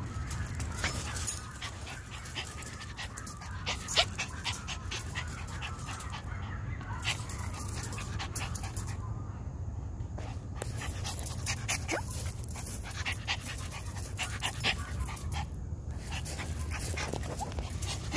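Toy poodle puppy panting, with many scattered sharp clicks.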